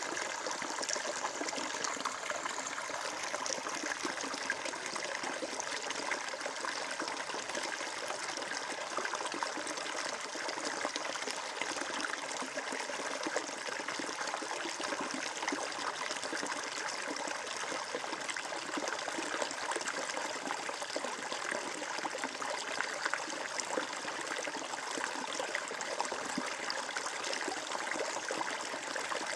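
Water flowing and trickling steadily, a stream babbling over stones with a fine splashing texture.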